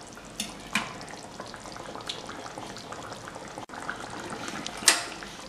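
Rui fish and sweet pumpkin curry simmering in a wok, a steady bubbling sizzle broken by several sharp pops, the loudest near the end.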